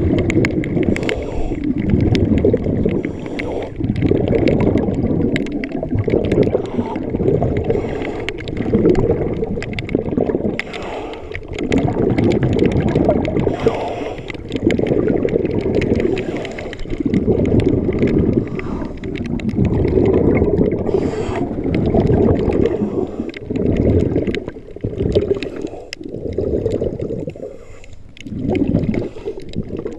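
Underwater water noise on the camera: a low gurgling rush that swells and fades in repeated surges every second or two.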